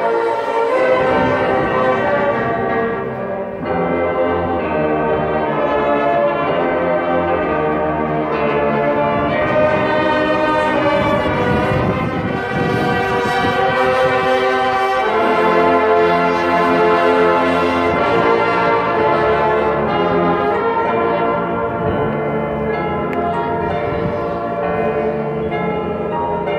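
Full college marching band playing: sustained brass chords over ringing bell-like mallet percussion from the front ensemble. The music grows brighter and fuller in the middle, with drums joining in, then eases back.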